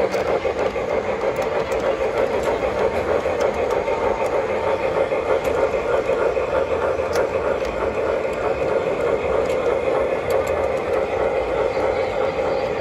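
MTH Premier O-scale PRR Q-2 4-4-6-4 model steam locomotive running along the track. Its Proto-Sound 2 sound system plays steady steam-locomotive running sounds over the hum of its motor and wheels on the rails, with an occasional sharp click.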